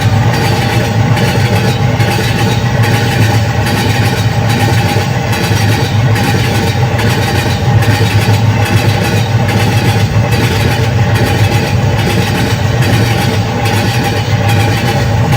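A train running, with a steady low rumble and a regular beat a little over once a second, like wheels crossing rail joints.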